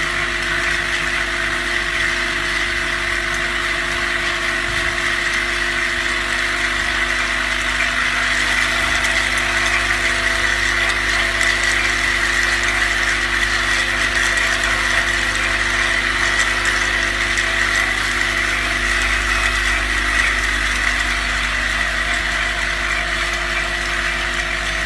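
Lid vibration machine running steadily, a constant mechanical buzz with a strong high hum.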